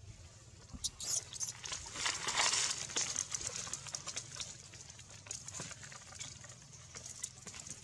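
Rustling, crinkling and scattered small clicks of macaques moving on dry leaf litter, loudest about two to three seconds in.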